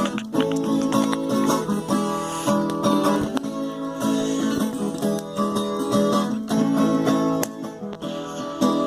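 Viola caipira plucking a melody over strummed chords in a quick cateretê rhythm: the instrumental introduction to the song.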